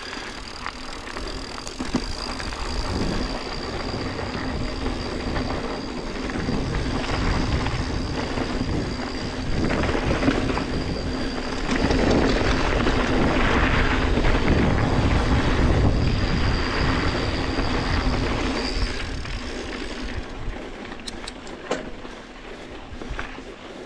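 Yeti SB150 mountain bike ridden on a dirt trail: tyres rolling and the bike rattling, with wind on the action camera's microphone. It is loudest about halfway through, then eases near the end, where a few sharp clicks come through.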